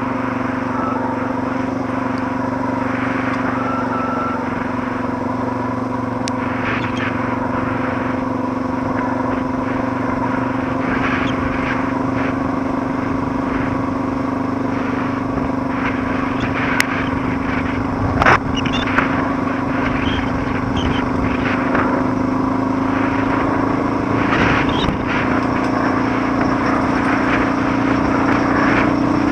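Suzuki DR650's single-cylinder four-stroke engine running steadily as the bike rides up a gravel road, its pitch rising slowly near the end. A few sharp knocks sound over it, the loudest about 18 seconds in.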